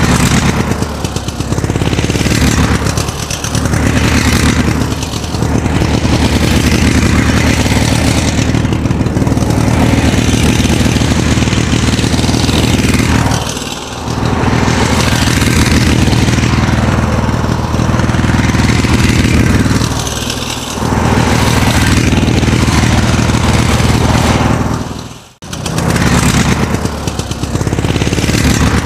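Engine running steadily and loudly, its level dipping briefly several times as if the revs ease off and pick up again. There is a sudden break about 25 seconds in, then it runs on.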